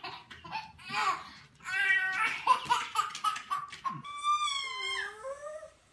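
Laughter in quick pulses, then about four seconds in a small dog howls: one long wavering call that dips and rises in pitch.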